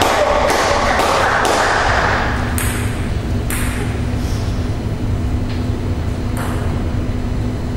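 Table tennis ball bouncing on a hard surface: a run of sharp pings about half a second apart, then a few more at wider intervals, over low hall hum.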